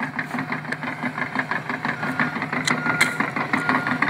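Hitachi 350 excavator's diesel engine running as the machine travels forward, with a rapid, regular clatter from its steel tracks and a faint high whine that comes and goes. A couple of sharp clanks about three seconds in.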